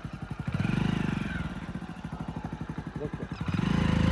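Hero motorcycle's single-cylinder engine ticking over in a steady run of firing pulses. It is blipped up briefly about half a second in, then revved harder and louder near the end.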